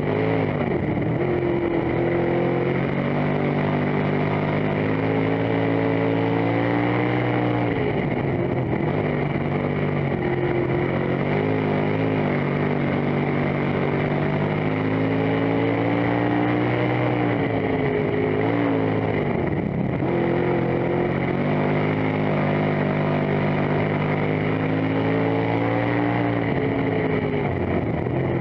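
Dirt-track race car's engine at racing speed, heard from inside the cockpit. The engine note climbs steadily as the car accelerates, then drops sharply three times as the driver lifts for the turns, with loud wind and chassis noise throughout.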